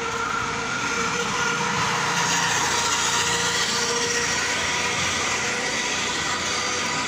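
Night city street traffic: a steady din of vehicles on the road, with an auto-rickshaw's small engine driving past.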